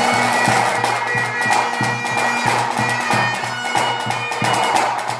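Bagpipes playing a tune over their steady drone, with pipe-band tenor drums beating in time, about two strokes a second.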